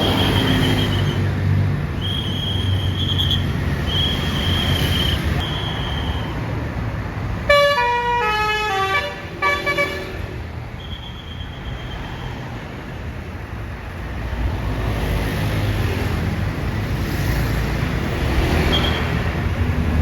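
Bus basuri musical horn playing a quick descending run of notes, then a shorter second run, over the low rumble of a bus engine. Short high steady toots sound several times in the first few seconds, and the engine grows louder near the end.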